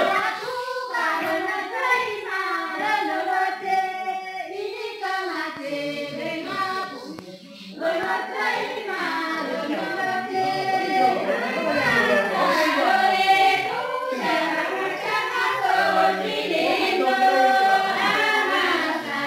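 Group of voices singing a Kinnauri folk dance song together in chorus, with no audible instruments, breaking off briefly about a third of the way through.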